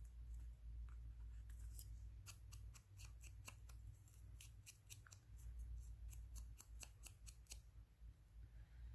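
Small scissors snipping paper: a faint, irregular run of short snips, two or three a second, over a steady low hum.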